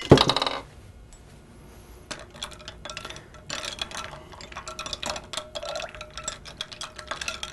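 Metal teaspoon stirring lemonade with ice cubes in a tall glass, clinking against the glass and the ice in quick irregular ticks, with the glass ringing faintly; the stirring starts about two seconds in. A short clatter comes right at the start.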